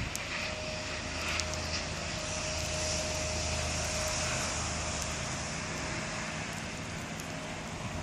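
A distant engine's steady drone that swells a little mid-way and then eases off, with a thin constant whine above it.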